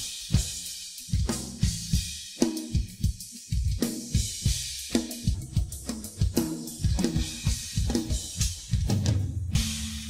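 Drum kit played alone, with no other instruments: a busy rock groove of kick drum, snare, toms, hi-hat and cymbal hits. About nine and a half seconds in, a heavy crash hit is left to ring out.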